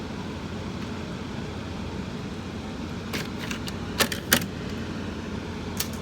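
12,000 BTU air conditioner's fan running steadily with the compressor not yet on. A few sharp clicks and rattles come about three to four and a half seconds in and once near the end as the unit's filter is handled.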